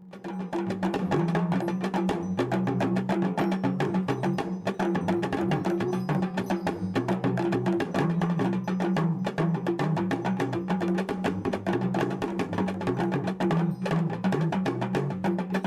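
Intro music with fast, steady wood-block-like percussion over a sustained low bass note.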